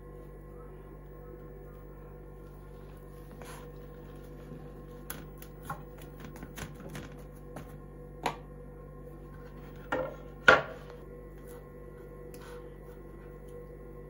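A table knife clicking and tapping against an enamel plate as butter is dabbed onto split flatbread: a few light scattered clicks, then a louder knock about three quarters of the way through, over a steady faint hum.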